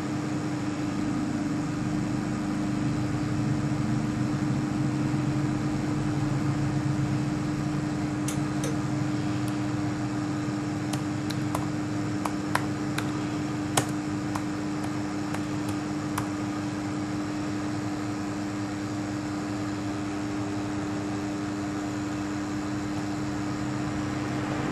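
Steady machine hum with a constant low tone, and a run of about fifteen light, sharp clicks over several seconds near the middle.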